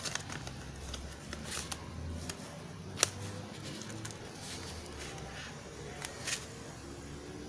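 Fingers tying plastic grafting tape tightly around a mango bud graft: soft handling sounds with scattered small clicks, the sharpest about three seconds in.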